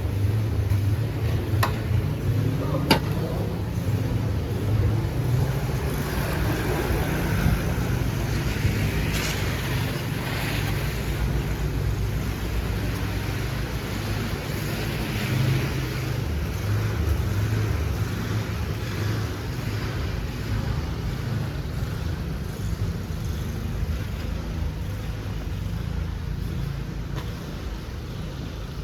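Strong wind buffeting the microphone: a steady, fluttering low rumble, with two sharp clicks in the first few seconds.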